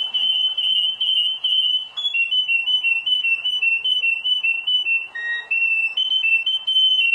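Domestic canary singing a long, continuous high trill that flips back and forth between two pitches every fraction of a second, with a brief lower note about five seconds in.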